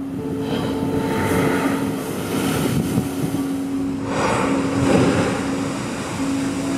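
Ocean waves surging and crashing against a coral rock shoreline, two swells of rushing surf, over a steady sustained music tone.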